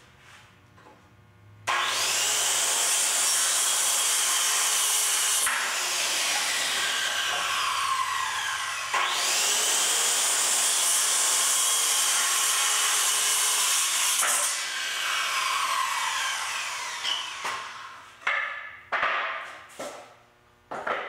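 Corded circular saw crosscutting 2x4 boards: it starts up sharply about two seconds in and winds down, then starts again for a second cut and winds down again. Several wooden knocks follow near the end as the cut pieces are handled and set down.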